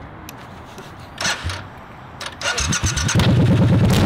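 Triumph Bonneville Bobber's parallel-twin engine being started: the starter cranks briefly, and about three seconds in the engine catches and runs loudly and steadily.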